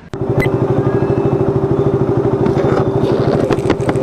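Motorcycle engine running steadily with an even, fast pulse. It comes in abruptly at the start, with a few sharp clicks or knocks from handling about half a second in and again near the end.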